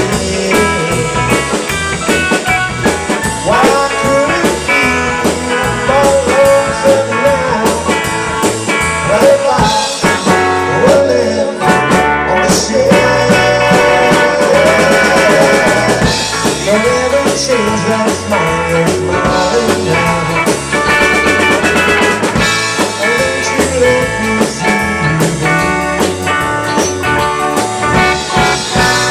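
Live band playing with electric guitars, bass guitar, drum kit and keyboard, loud and continuous.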